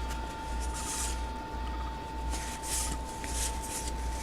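Trading cards sliding against one another as a stack is handled and flipped through, giving soft swishes every second or so. Under them runs a steady faint high tone and a low electrical hum.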